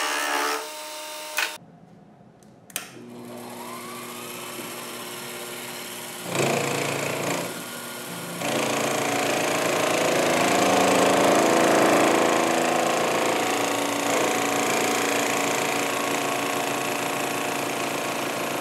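Sherline milling machine spindle spinning a fly cutter across an aluminum block, a steady motor whine mixed with cutting noise. There is a short lull with a click at each end about two seconds in, then the whine rises in pitch, and the cutting gets louder from about six seconds in.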